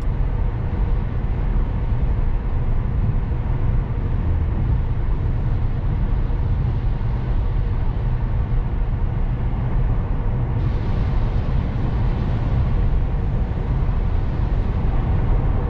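Steady road and tyre rumble inside the cabin of a Tesla Model S Plaid cruising at about 100 km/h. The hiss turns brighter suddenly about ten seconds in.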